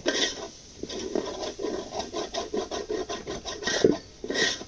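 Metal spoon scraping and stirring around a metal pot of hot oil with onions and whole spices, in quick repeated strokes about three a second, over the bubbling of the oil.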